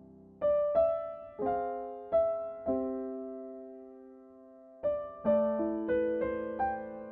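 Background piano music: a slow, gentle melody of single struck notes that each ring out and fade, with a pause of about two seconds in the middle.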